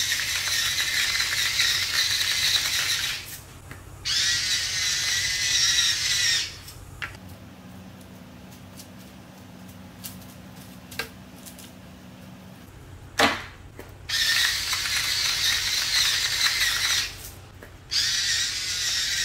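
Electric stainless-steel salt and pepper grinders whirring in four bursts of a few seconds each as salt and pepper are ground over raw mackerel steaks. A quieter pause in the middle holds a low hum, a few light ticks and a sharp knock.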